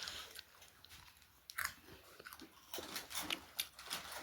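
Someone biting into and chewing a fried bread snack, with short crunches coming in bursts.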